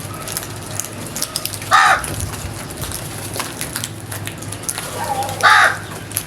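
A crow gives two harsh caws about three and a half seconds apart, over a steady crackling background.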